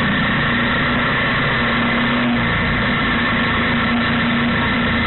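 Motorcycle riding along at steady speed: engine running, mixed with wind and road rush. It is picked up by an action camera's built-in microphone mounted low on the bike's front fork.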